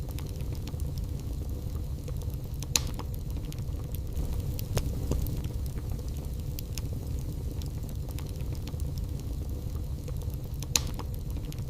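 Wood fire burning in a fireplace: a steady low rumble with scattered small crackles, and two louder pops, one about three seconds in and one near the end.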